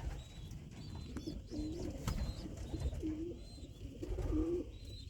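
Domestic racing pigeons cooing in a loft: a run of short, low, repeated coos, about one a second.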